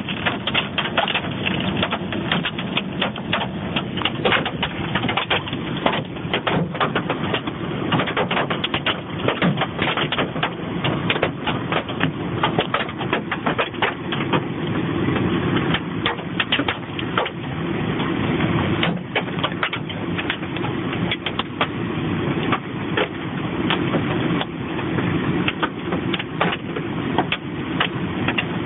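Hail pelting down: a dense, irregular clatter of many hailstone hits over a steady rushing noise, heard through a narrow-band phone recording.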